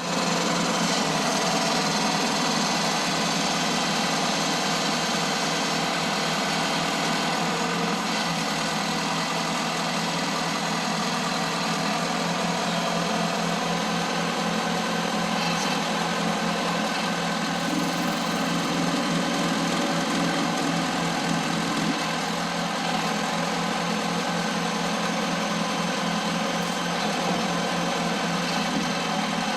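John Deere backhoe's diesel engine running steadily.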